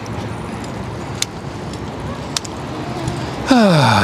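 Steady wind and road noise from riding a bicycle, with a couple of faint clicks. About three and a half seconds in, a loud motor vehicle passes close, its pitch falling quickly.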